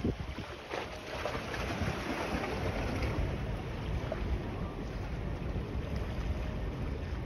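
Steady wind buffeting the microphone by open water, with a low rumble underneath that thickens about a second in and then holds.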